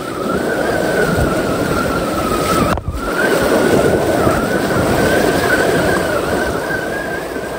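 RC car's electric motor whining steadily at full throttle as its wheels churn through floodwater, over a dense splashing and sloshing of thrown-up water, with a brief break about three seconds in.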